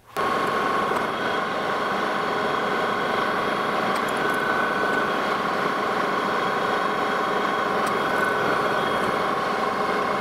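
Metal lathe running under power while an insert turning tool faces off a spinning brass casting. It gives a steady machine hum with a faint steady whine over it.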